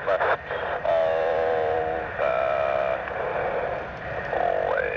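A voice stretching its words into long, held, slightly wavering syllables over an air-band radio, sounding thin and narrow: the Thunderbird lead's drawn-out manoeuvre call to the diamond formation, with a rising tone near the end.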